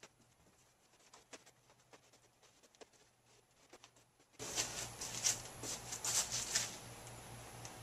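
Plastic spreader tapping and scraping as Bondo body filler is mixed with its cream hardener and spread on a fiberglass surface: faint light clicks at first, then about halfway through a run of louder, sharper scrapes over a steady low hum.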